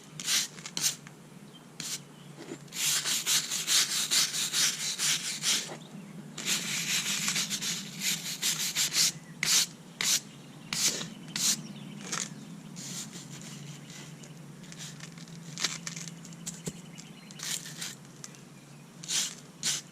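Steel wire brush scrubbing a crack in a concrete driveway, loosening dirt before it is filled. Two long runs of quick back-and-forth strokes come a few seconds in, followed by slower, separate strokes.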